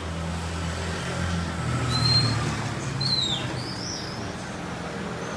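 Steady low machine hum, with a few brief high-pitched chirps or squeaks about two to three seconds in, one of them falling in pitch.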